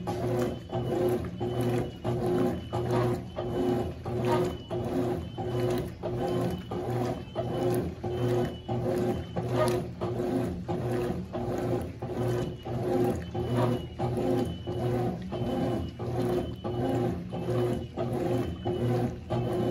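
Consul 12 kg CWS12 top-loading washing machine agitating: the motor hums and the agitator swings the load back and forth in a steady rhythm of about two strokes a second.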